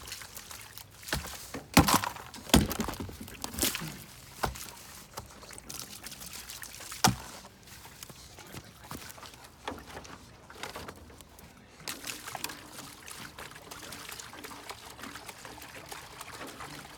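Fresh water being poured into a pig's water bowl, with several knocks and clunks of the containers being handled in the first seven seconds.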